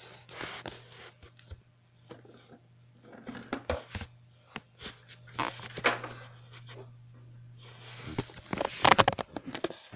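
Handling noise: scattered clicks, knocks and rustling as the recording device and small objects are moved about, over a steady low hum. The hum stops about eight seconds in, followed by a louder flurry of rustling and clicks.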